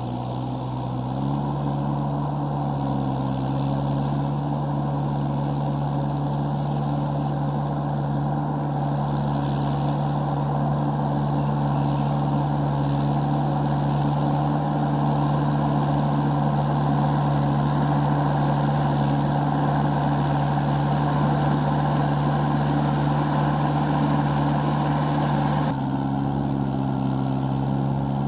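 Mahindra tractor's diesel engine working under load as it drives steel cage wheels through puddled paddy mud. The engine note rises in the first second or so, then holds steady, with a sudden change in the sound near the end.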